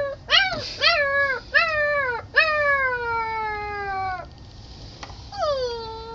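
Puppy howling: three short calls that rise and fall, then a long call that slides down in pitch, and after a short pause another long howl begins near the end.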